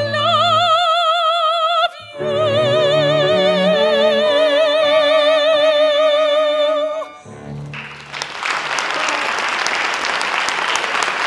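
A soprano holds a long final note with a wide vibrato over piano and strings. She breaks briefly about two seconds in, then sustains the note until the song ends about seven seconds in. A moment later the audience starts applauding.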